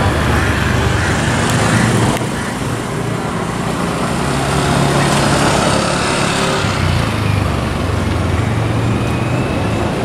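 Street traffic noise, with a small engine running close by whose low drone shifts in pitch about two-thirds of the way through.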